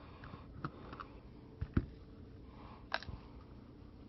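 Handling noise from a plastic solar garden stake light being picked up and turned over in the hands: scattered small clicks, a knock a little under two seconds in and a sharp click about three seconds in.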